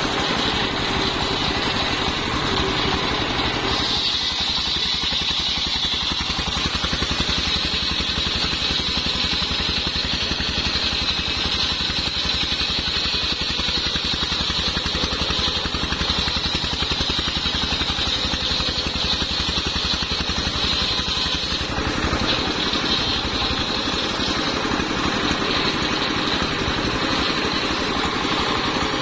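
Single-cylinder diesel engine running steadily, belt-driving an 85 cm circular saw blade. About four seconds in the blade goes into a sengon log and a high hiss of the cut runs over the engine until about 22 seconds in, after which the engine and free-spinning blade run on.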